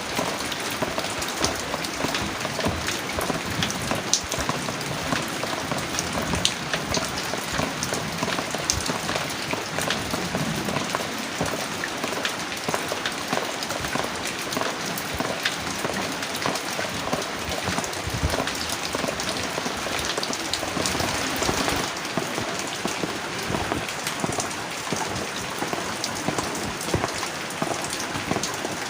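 Steady rain falling and pattering on a surface, with many individual drops ticking through the constant hiss.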